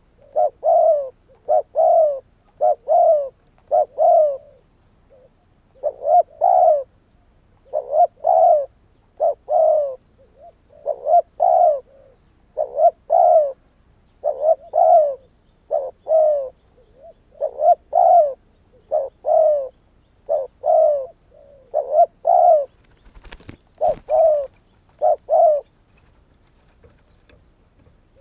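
Spotted dove cooing, a decoy bird calling: short coos repeated in quick groups every second or two, with a brief pause about five seconds in. A single sharp knock comes near the end, and the cooing stops shortly after.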